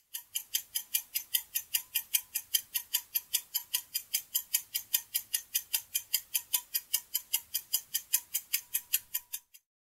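Clock-ticking sound effect marking a quiz's countdown timer: a rapid, even ticking, about four or five ticks a second, that stops abruptly near the end as the time runs out.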